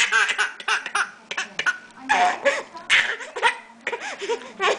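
Laughter in a quick run of short bursts, each rising and falling in pitch.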